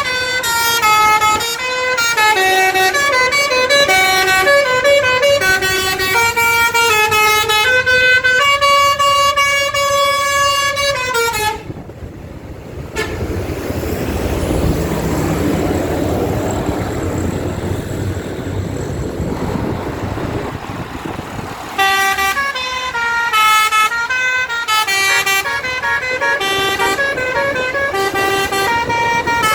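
Basuri musical bus horn (telolet) playing a tune in clear stepped notes, breaking off about twelve seconds in. A stretch of rushing noise follows, and the horn melody starts again about twenty-two seconds in.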